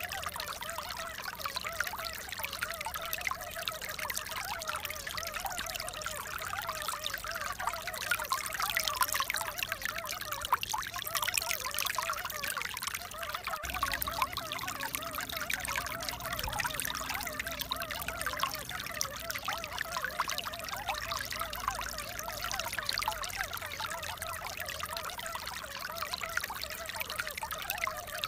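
Running water trickling and pouring steadily, with a continuous bubbling flow.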